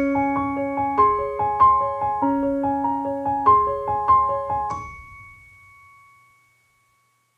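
Piano playing the instrumental ending of a lullaby: a repeating broken-chord figure of about four notes a second. About five seconds in it stops on a single held high note that fades to silence.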